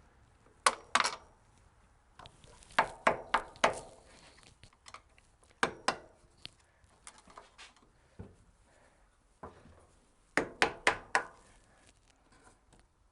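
Hand tools clinking and knocking against metal as suspension bolts are worked loose: short clusters of sharp metallic taps, a few at a time, with pauses between.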